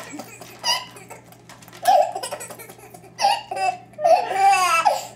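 A baby laughing in several short, high-pitched bursts, the longest about four seconds in.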